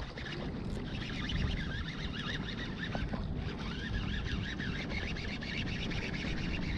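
Water washing against shoreline rocks with wind buffeting the microphone, and a busy run of high, wavering chirps over it.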